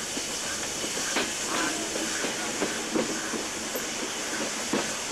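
Steam train running, heard from an open carriage window: a steady hiss of steam with sharp knocks of the running train about twice a second.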